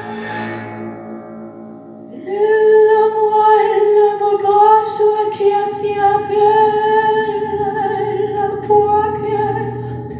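A woman singing with instrumental accompaniment: after a quieter fading passage, she comes in about two seconds in and holds one long, slightly wavering note almost to the end.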